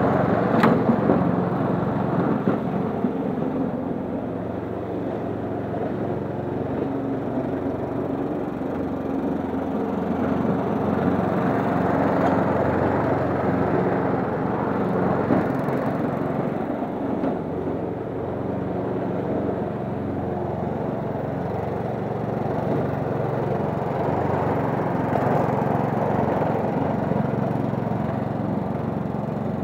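Wolf petrol rotary lawn mower running steadily while being pushed across grass, its engine note swelling and dipping slightly with the load. A single sharp click comes about half a second in.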